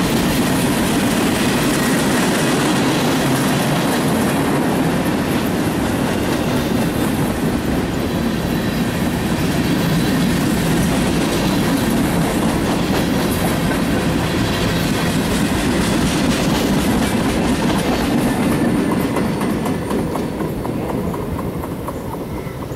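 Freight train of tank cars rolling past close by: a steady noise of steel wheels running on the rails, fading near the end as the last cars go by.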